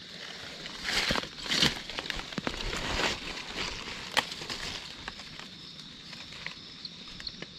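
Dry leaf litter crunching and rustling underfoot on a forest floor. It comes in irregular crackly bursts, loudest about a second in and again around three seconds, then thinning out.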